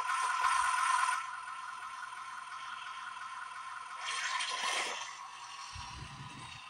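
Simulated tank engine sound from a Henglong Type 90 RC tank's built-in sound unit, coming through its small speaker as a thin, hissy engine noise with no bass. It is loudest for about the first second, drops, and swells again about four seconds in as the volume levels are stepped.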